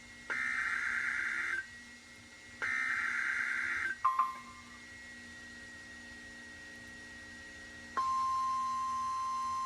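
Two bursts of the EAS SAME header, a shrill warbling data tone each lasting about a second and a half, a second apart, encoding the start of a Severe Thunderstorm Warning broadcast on NOAA Weather Radio. A brief click follows about four seconds in. About eight seconds in, the steady 1050 Hz NOAA Weather Radio warning alarm tone starts.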